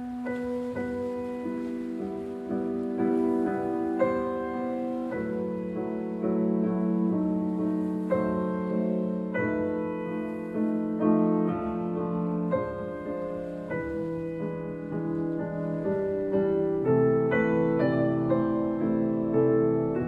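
Slow piano music, its notes and chords ringing over one another and gradually growing louder.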